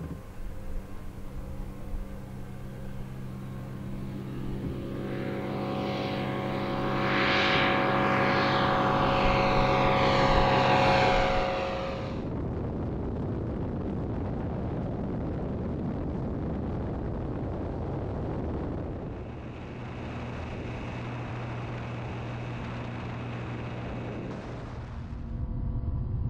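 Light-sport aircraft's propeller engine at full power as the plane takes off and passes close by, getting louder with a sweeping sound as it goes past. About halfway through, it is the same engine heard from a camera on the aircraft in flight: a steady engine drone mixed with rushing air.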